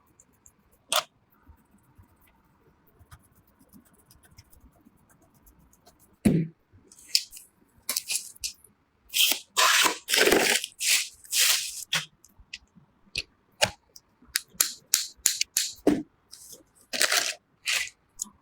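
Sharp clicks, snaps and short scraping sounds of computer parts being handled and fitted together. They are sparse at first and come thick and fast from about six seconds in.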